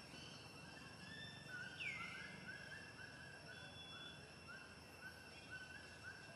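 Faint outdoor ambience with a bird calling a quick series of short, repeated notes, about two to three a second, over faint steady high-pitched tones. One louder call sweeping downward in pitch comes about two seconds in.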